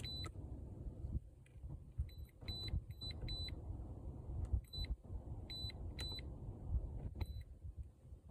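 Handheld automotive scan tool beeping at button presses: about nine short, high beeps at irregular intervals while codes are erased and read. A low rumble runs underneath.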